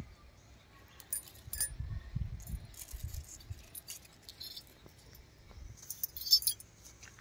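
Hands working through bitter gourd vines: low handling bumps on the microphone and scattered light clicks and clinks, with the loudest burst of clinking about six seconds in.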